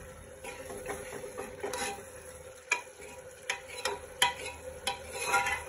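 A steel spoon stirring and scraping onion-tomato masala frying in an aluminium pressure cooker, over a soft sizzle, with several sharp clinks of the spoon against the pot's metal sides.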